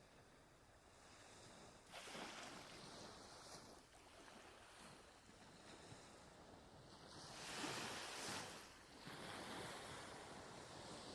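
Faint ocean waves washing on the shore: one surge of surf about two seconds in and a louder one about eight seconds in.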